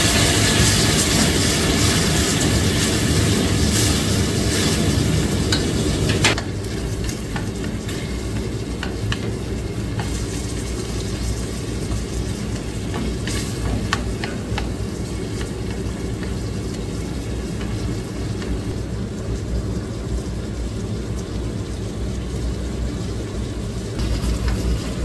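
Food sizzling in a hot pan: a loud sizzle that drops off abruptly about six seconds in, leaving a quieter steady sizzle over a low hum, with a few sharp clicks.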